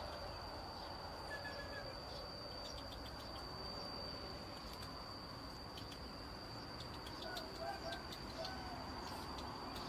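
A steady, high-pitched insect drone, like crickets or cicadas, with a few short, faint calls about a second in and again around seven to eight seconds in.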